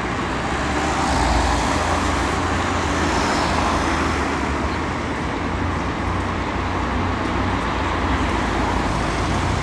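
Steady road traffic noise on a city street, with a continuous low engine rumble from passing vehicles.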